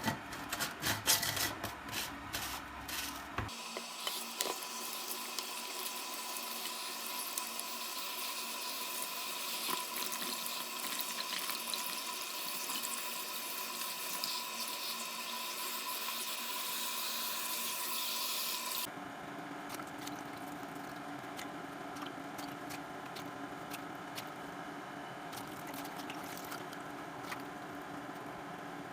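Water running, a steady watery hiss, after about three seconds of quick clicks and knocks. About nineteen seconds in, the sound changes abruptly to a different steady hiss.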